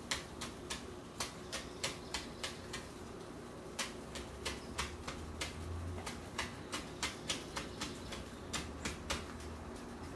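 Chef's knife chopping on a plastic cutting board: an uneven run of quick, light taps, about three a second, as a small pepper is diced finely.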